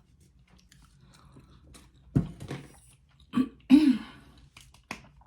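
A person eating: chewing and wet mouth sounds, with three short, throaty sounds like throat-clearing about two, three and a half and four seconds in.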